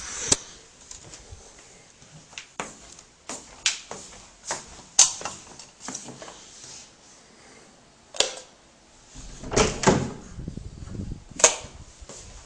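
Irregular sharp clicks and knocks, a dozen or more, in a small room. A louder cluster of thumps and rustling comes near the end, followed by one sharp click.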